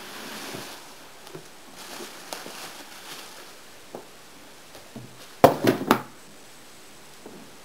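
Unpacking handling noise: cardboard and bubble wrap rustling with scattered light knocks as an aluminium-framed hard case is lifted out of its box. About five and a half seconds in, a quick run of three louder knocks as the case is set down and handled.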